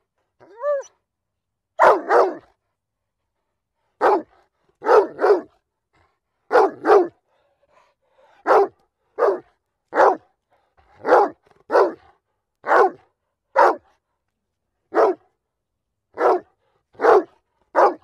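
A dog barking: about twenty short barks at irregular gaps, some single and some in quick pairs, after a brief whine that rises and falls in pitch near the start.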